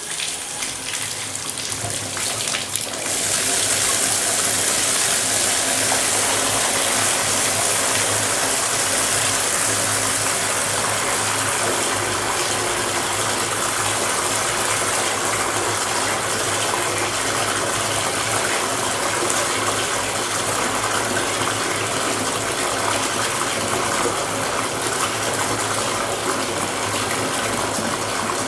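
Bathtub filling from the tap: water gushing steadily into the tub, growing louder over the first three seconds and then holding steady.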